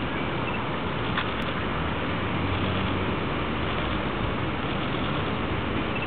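Steady outdoor background noise, an even rushing hiss, with one faint short tick about a second in.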